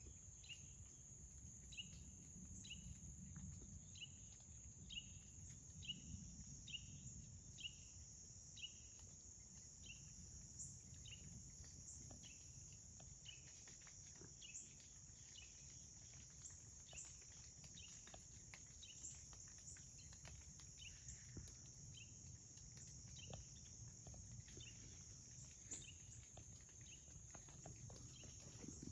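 Faint insect chorus: a steady high-pitched drone, with a short chirp repeating about every 0.7 seconds at first and more sparsely later. Scattered faint clicks throughout.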